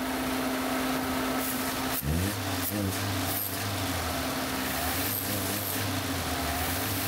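Toyota 1SZ-FE 1.0-litre four-cylinder petrol engine idling, then about two seconds in the throttle is opened by hand at the throttle body and the engine note rises and holds at a higher speed. The mechanic says it misfires slightly at the higher speed because the sensor connector at the air filter box is unplugged.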